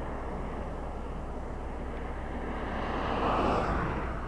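Road traffic noise, with a vehicle passing that swells to its loudest about three and a half seconds in and then fades.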